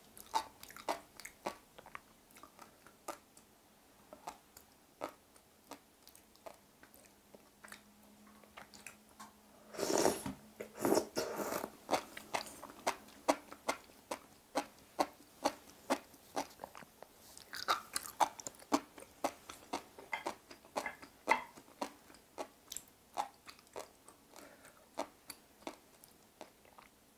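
Close-miked chewing of sea grapes, a bead-like green seaweed: many small sharp pops and crunches as the beads burst between the teeth, with a louder, denser stretch about ten seconds in and another a little later.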